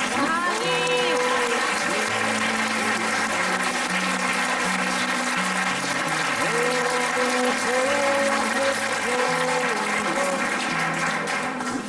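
Audience applauding steadily, with voices talking over the clapping.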